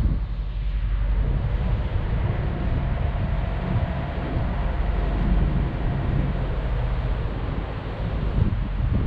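Wind buffeting the microphone over the steady low rumble of a small passenger ferry's engine as it crosses the harbour channel, with a faint hum in the middle.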